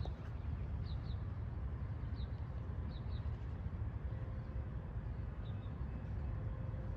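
Short, high chirps of a small bird, often in quick pairs, repeated several times over a steady low rumble.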